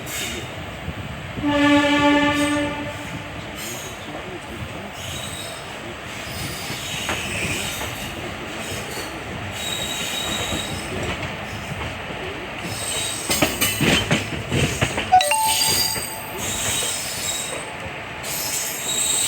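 WAP-4 electric locomotive's horn sounding one steady blast of just over a second, about a second and a half in, over the continuous running noise of ICF coaches on the track. Near the end, the wheels clatter rapidly over rail joints for a couple of seconds.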